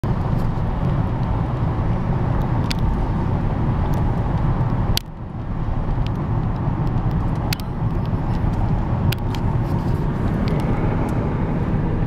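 Steady road and engine rumble of a car driving on a wet, snowy highway, heard from inside the cabin, with a few sharp clicks. The noise drops suddenly about five seconds in and builds back up.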